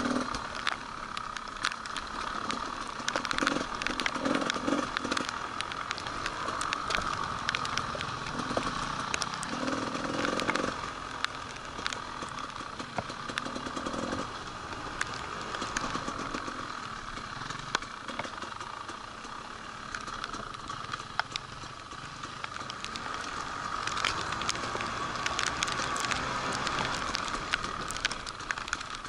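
Off-road enduro motorcycle running while being ridden, a steady engine drone with many scattered clicks and crackles throughout.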